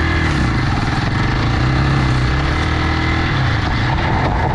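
Motorcycle engine running steadily, most likely the single-cylinder engine of a Hero XPulse 200.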